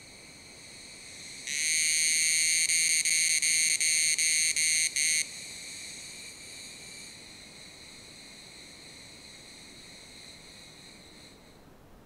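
Tanna evening cicada singing, an unidentified species that may be Tanna karenkonis: a high, ringing buzz that turns loud about a second and a half in, breaks up into a quick run of short gaps, then drops back quieter and fades out near the end.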